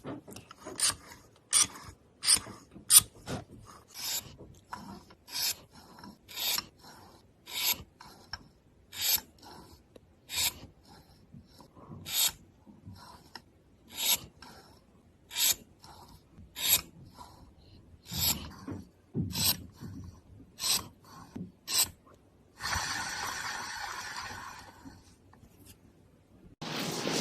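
Repeated rasping, scraping strokes, a bit more than one a second. Near the end they give way to a steady buzzing hiss lasting about two seconds.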